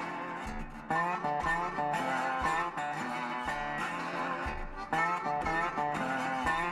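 Background music: guitar-led instrumental with bending notes and a steady beat.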